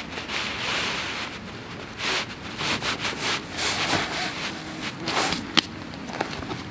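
Dry leaf litter rustling and crunching in irregular bursts as a thin metal tarp stake is pushed by hand into the forest floor, with a couple of sharp clicks about five seconds in.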